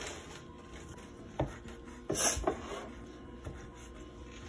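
Chef's knife dicing a tomato on a bamboo cutting board: a few sharp knife strikes on the board, the loudest cluster about two seconds in.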